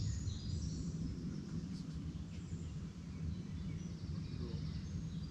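Woodland outdoor ambience: a steady low rumble with faint birdsong chirping high above it.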